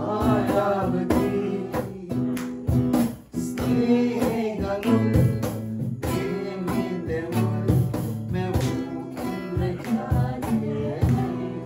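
Singing accompanied by a strummed acoustic guitar, the strums keeping a steady beat under the voice.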